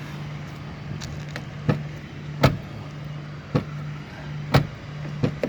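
A series of sharp clicks and knocks, about one a second, from a car door being worked against its newly adjusted striker and latch. A steady low hum runs under them.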